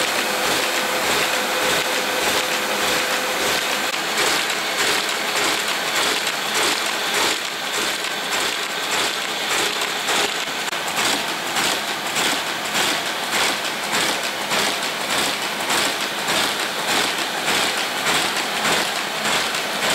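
Stahl T36 buckle folding machine running: a steady noisy whir of rollers and air feed with a regular clatter about two times a second.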